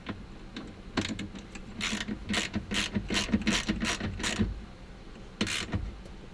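Ratchet wrench clicking in quick strokes, about three or four a second, as a seat belt anchor bolt is tightened. Another brief pair of clicks comes near the end.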